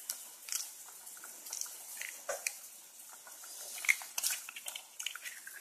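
Curry simmering in an aluminium pot, with scattered small bubbling pops and crackles. About four seconds in, a sharp crack as a hen's egg is broken over the pot and dropped in.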